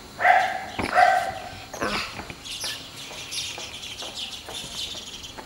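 Dog barking: two loud barks about a second apart, then a fainter third one.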